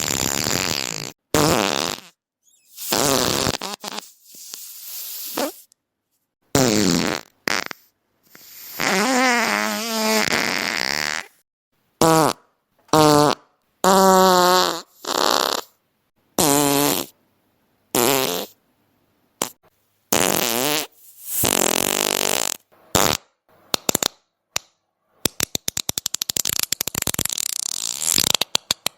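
A string of about twenty fart sound effects, one after another with silent gaps between. Some are short raspy blasts and some are long, with a wobbling, warbling pitch. Near the end comes a fast rattling run of short pops.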